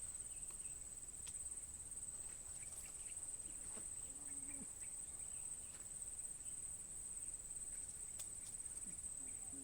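Insects trilling steadily in a high, finely pulsed buzz, with a few faint ticks.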